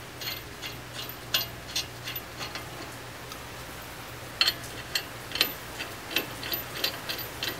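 Scattered sharp metallic clicks and ticks of lug nuts being threaded by hand onto wheel studs to hold a hub puller against the hub, over a steady low hum.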